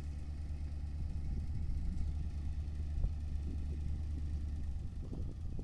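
1976 International 1800 grain truck's engine idling steadily with a low rumble. The steady note breaks up near the end.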